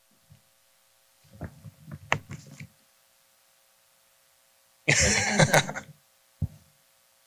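Faint muffled voices, then about five seconds in a brief loud rustle on a handheld microphone, over a faint steady electrical hum from the sound system.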